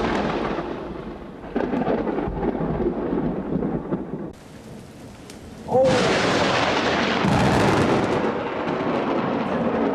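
Thunderstorm: thunder rumbling over steady rain. After a quieter spell the noise jumps suddenly louder about six seconds in and stays loud.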